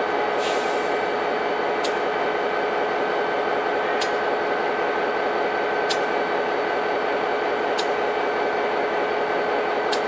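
Diesel locomotive idling with the train standing: a steady drone with a held tone, and a sharp click about every two seconds.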